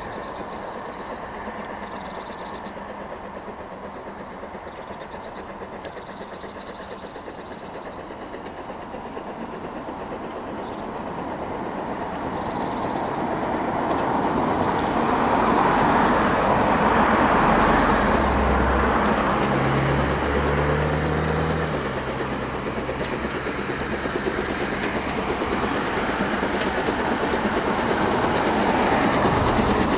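Steam locomotive hauling a train along the line, its running and exhaust noise swelling loudly about halfway through, easing a little, then building again near the end as it draws closer. Birds chirp faintly in the first several seconds.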